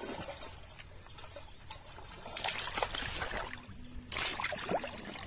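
River water splashing and sloshing as a person wades through it, chest-deep, with two louder rushes of splashing, the first about two and a half seconds in and the second about four seconds in.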